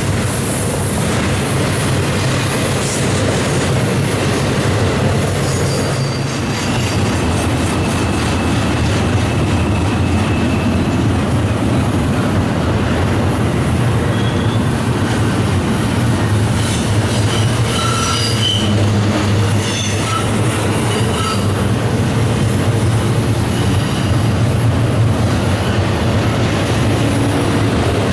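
A train rolling past at close range: a steady loud rumble of steel wheels on rail, with high-pitched wheel squeal that comes and goes, held for several seconds and then in short chirps further on.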